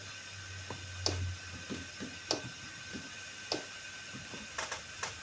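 Laptop keyboard keys being pressed one at a time, about eight separate clicks with a few close together near the end, over a steady low hum and a faint high whine.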